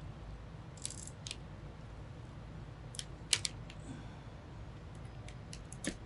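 Small sharp clicks and taps from hands working on computer parts, a few scattered through, with the loudest just past the middle, over a low steady hum.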